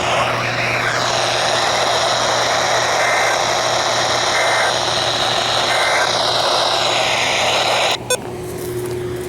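Loud radio static: a steady hiss with faint wavering tones through it and three short beeps in the middle, cutting off abruptly with a click about eight seconds in, leaving a quieter hiss.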